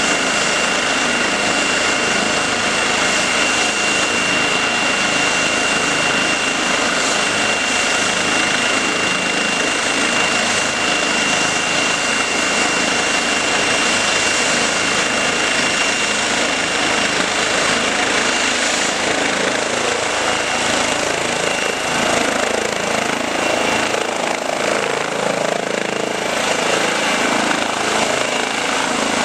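Eurocopter EC135 twin-turbine helicopter running on the ground with its rotor turning: steady turbine whine and rapid rotor chop. About 20 seconds in the steady high whine fades and the sound shifts as power comes up, and the helicopter lifts off near the end.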